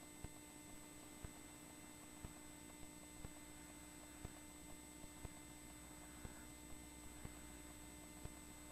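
Near silence: a faint steady electrical hum with soft ticks about every half second.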